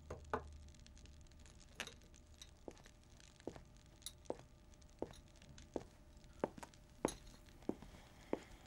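Knife chopping food on a cutting board: a run of short, sharp taps at an uneven pace of about two a second.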